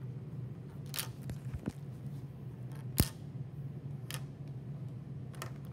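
A few sharp, scattered clicks, one much louder about three seconds in, over a steady low hum.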